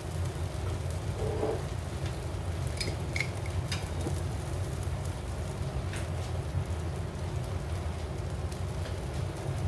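Tortilla wraps sizzling steadily in a frying pan over a gas burner, under a constant low rumble. A few sharp crackles pop out around three to four seconds in, and once more at about six seconds.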